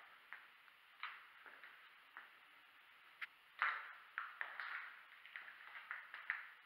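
Faint footsteps crunching and scuffing on a gritty, debris-strewn floor: a string of irregular short crunches, the loudest about three and a half seconds in.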